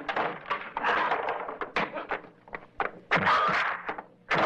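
Fight sound effects from a 1980s martial arts film: a rapid series of punch and body-blow thuds and whacks, mixed with grunts and short cries from the fighters.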